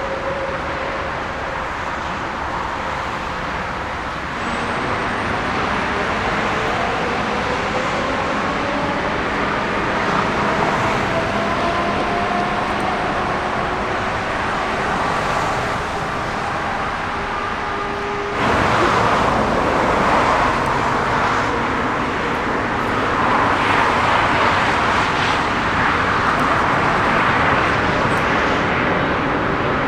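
Jet airliner engines running, a steady rumble with faint whining tones that slowly rise in pitch. About two-thirds of the way through the sound changes suddenly and becomes louder and rougher.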